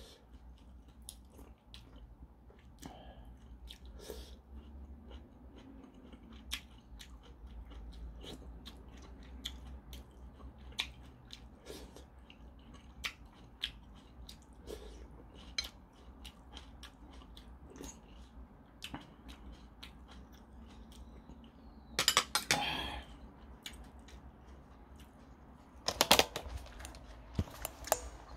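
A person eating ramen: chewing, with many small clicks of a spoon and fork against the bowl. Two louder noisy stretches come near the end.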